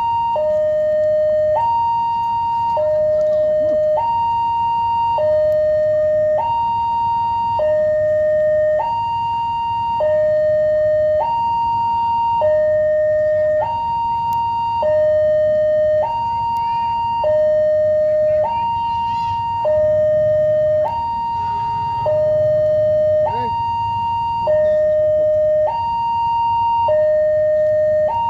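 Level crossing warning alarm sounding a steady two-tone signal, alternating between a low and a high pitch about every second, because a train is due. A low rumble from the approaching train grows beneath it around twenty seconds in.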